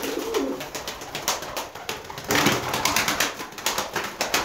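Turkish tumbler pigeons cooing in their loft, with many short sharp clicks and taps.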